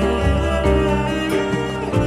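Instrumental music from a song: sustained held notes and chords changing every half second or so, with no voice.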